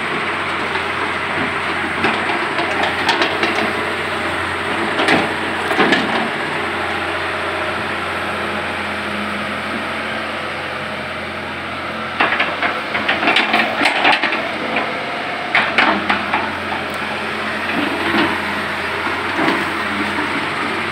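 Tracked hydraulic excavator's diesel engine running steadily while its bucket digs silt and rubble out of the riverbed, with clusters of clanks and scraping knocks, busiest in the second half.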